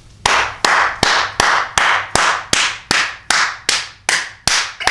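A man clapping his hands in a steady, even rhythm, about thirteen sharp claps at roughly two and a half a second.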